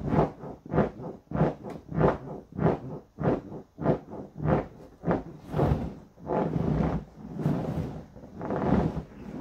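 An inflatable vinyl rocking horse squeaking and rubbing under a rider who bounces on it, about three squeaks every two seconds. In the second half these turn into slower, longer squeals.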